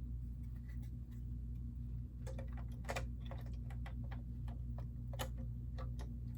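Plastic Lego pieces clicking and tapping as they are handled and pressed together: irregular small clicks, a few sharper ones, over a steady low hum.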